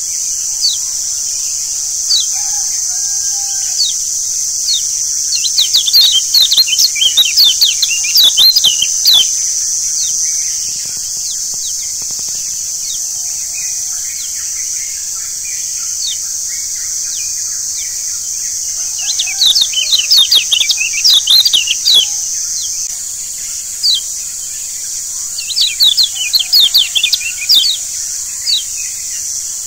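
Yellow white-eye (kecial kuning) chirping in three bursts of rapid, sharp, high notes, with scattered single chirps between them, over a steady high hiss.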